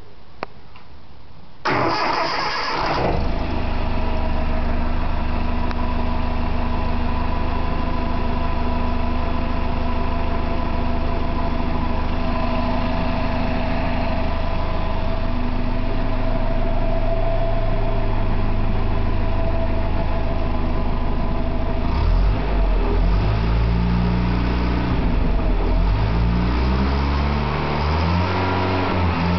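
Land Rover Series IIA 2.5-litre four-cylinder petrol engine, breathing through a stainless 2-inch big-bore exhaust, starting up about two seconds in and settling into a steady idle. From about 22 seconds on it is revved up and down several times.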